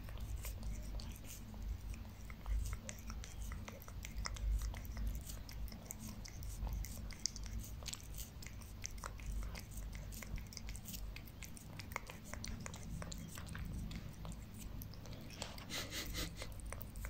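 A cat lapping a liquid treat from a squeeze pouch right at its mouth: a fast, irregular run of wet tongue clicks and smacks, several a second, growing denser near the end.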